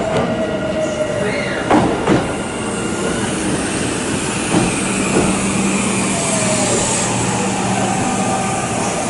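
Kintetsu electric train running on the rails, heard from aboard. A steady running rumble with a few sharp clacks and knocks in the first two seconds and again about halfway through, and a low steady hum in the second half.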